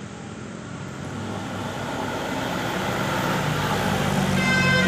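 A tour bus approaching, its engine and road noise growing steadily louder. Just before the end, the steady multi-tone notes of a telolet air horn begin.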